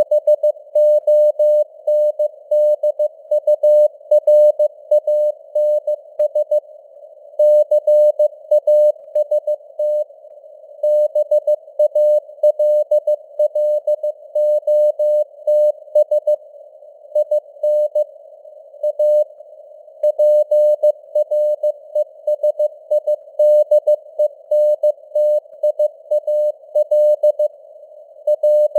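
Morse code (CW) sent at 15 words per minute as a single keyed mid-pitched tone, in rapid dots and dashes with short pauses between words. A faint simulated radio-noise hiss sits beneath it.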